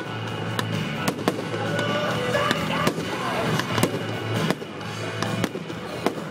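Fireworks display: many sharp bangs and crackles several times a second, over music played through loudspeakers.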